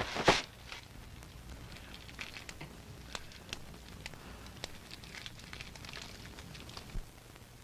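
A short loud noise burst about a quarter second in, then faint, irregular crackles and clicks over a low steady hum.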